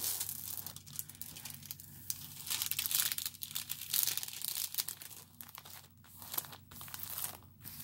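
Clear plastic cover film on a diamond painting canvas crinkling and rustling as hands rub and smooth it, with short lulls.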